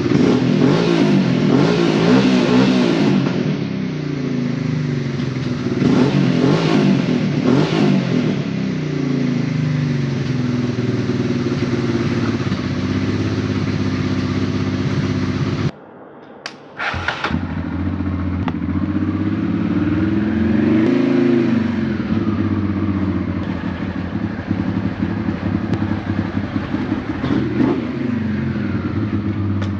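Honda Transalp V-twin motorcycle engine, fitted with a new exhaust, running and revving up and down several times. The sound drops out briefly about halfway through.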